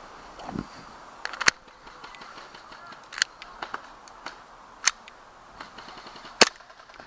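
Airsoft gun firing single shots: four sharp cracks about a second and a half to two seconds apart, with fainter clicks between them.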